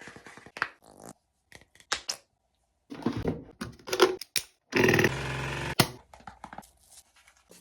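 Skincare cleanser bottles being squeezed and pumped, making funny noises: short clicks and squirts, then a loud rasping squirt lasting about a second, about five seconds in.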